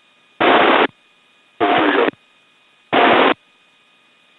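Three short bursts of harsh noise on the helicopter's radio and intercom audio, each about half a second long, starting and stopping abruptly about a second apart, with a faint steady radio hiss between them.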